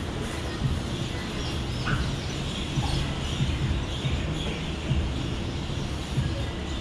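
Grappling on training mats: a steady din with scattered soft, low thumps.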